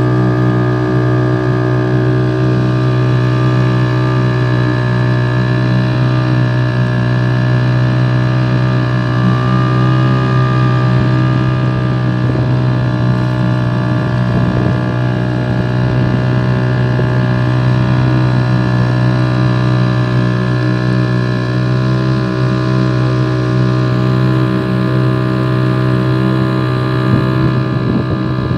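Motorboat engine running at a steady speed, a constant droning hum.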